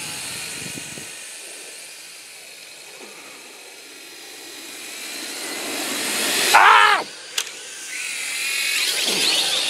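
Small quadcopter drone's electric motors and propellers whining steadily in flight, fading as it climbs away and growing louder as it comes back down. About seven seconds in, the whine drops away and there is a sharp knock as the drone bounces on landing. Near the end the motors whine up again, rising in pitch.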